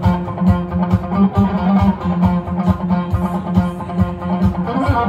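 Electric guitar played along to a disco backing track with a steady, driving beat and bass line.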